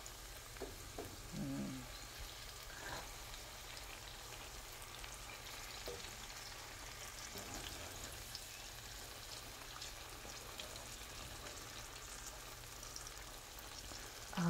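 Pieces of banana frying in oil in a pan: a steady, soft sizzle flecked with small crackles. A brief low hum is heard about a second and a half in.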